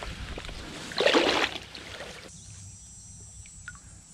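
Water splashing and sloshing around a freshly caught brown trout held in the stream, with one louder splash about a second in. About two seconds in the splashing stops, leaving a faint high steady hum.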